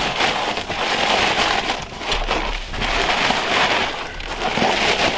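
Rustling and crinkling of nylon as a shirt is worked over the end of an inflatable sleeping pad and a puffy jacket's sleeves brush against it, in irregular swells.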